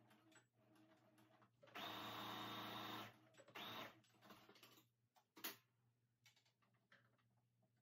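Brother electric sewing machine stitching across fabric in short runs: one steady run of about a second and a half, then a brief burst. A sharp click follows a couple of seconds later.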